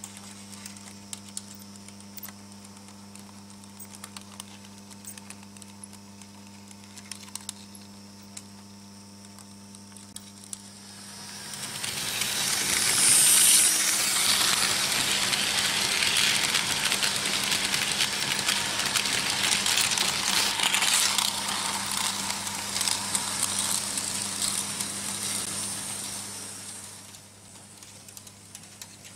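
Märklin H0 model train running over metal M-track: at first only a steady electrical hum with faint ticks, then about 11 seconds in a loud clattering rattle of wheels on the track swells up as the train passes close, holds, and fades away near the end.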